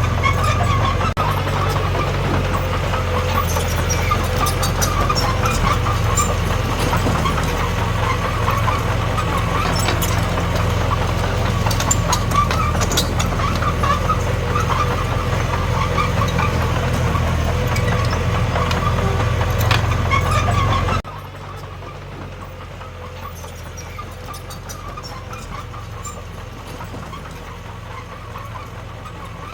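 Diesel engine of earthmoving machinery running steadily, with scattered metallic clinks. About two-thirds of the way through it drops suddenly to a quieter, steady engine sound.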